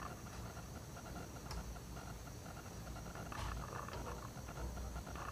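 Faint light clicks and scraping of a hex key turning the piercing screw of a bullet piercing valve clamped on a copper refrigerant line, driving the pin into the tube, over a low steady background rumble.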